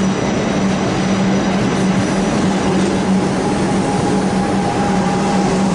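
Melbourne suburban electric train moving slowly alongside the platform: a steady low electric hum over wheel-on-rail running noise.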